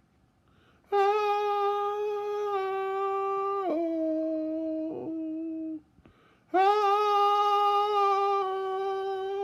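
A steady humming tone held twice, each time for about five seconds, stepping down to a lower pitch with a short dip partway through.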